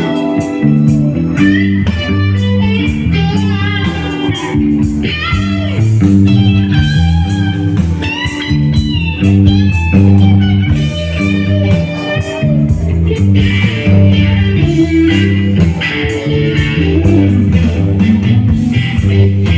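A rock trio plays live: an electric guitar lead with bent, sliding notes over bass guitar and drums.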